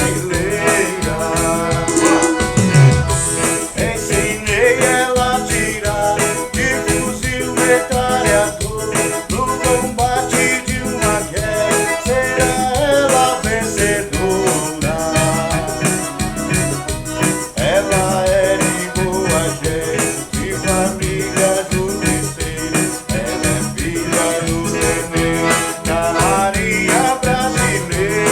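Forró music played live by a band, an accordion leading over a steady, even beat.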